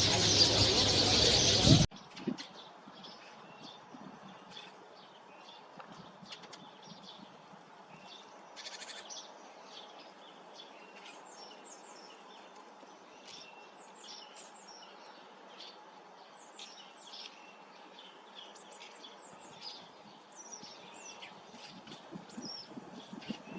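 Sparrows chirping: many short, high chirps scattered steadily and faintly. A loud, dense sound at the very start cuts off abruptly about two seconds in.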